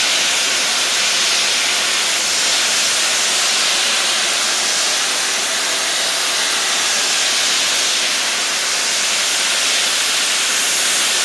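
Steam hissing steadily from the Merchant Navy Class locomotive 'Clan Line' as it stands at the platform.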